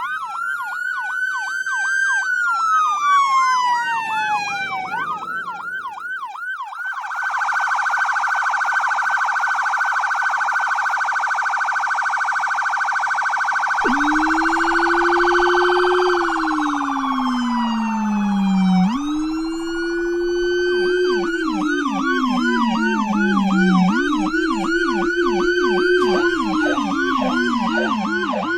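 Electronic emergency-vehicle sirens changing modes. First comes a slow wail with a fast yelp sweeping over it. About seven seconds in it turns to a very fast phaser warble. From about fourteen seconds a much lower-pitched rumbler tone rises and falls alongside the higher wail, and the fast yelp returns over both near the end.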